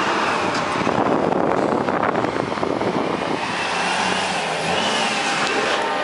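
Heavy trucks driving past, with steady engine and road noise. A faint high whistle rises and falls about five seconds in.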